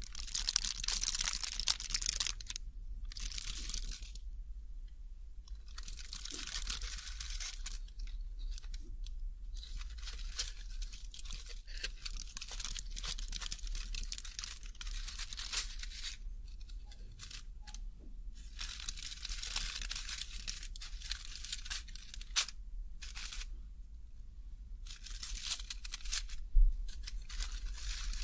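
Close-miked crinkling and tearing of snack packaging in repeated bursts of a second to several seconds, with short pauses between them, over a faint steady low hum.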